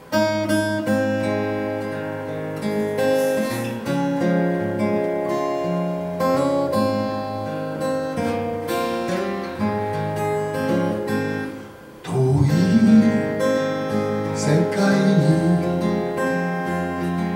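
Acoustic guitar playing a folk-song introduction in picked and strummed chords. It breaks off briefly about twelve seconds in, then comes back louder.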